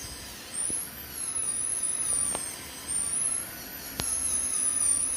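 High-speed dental drill whining, its high pitch rising and falling as it runs, with a few faint clicks.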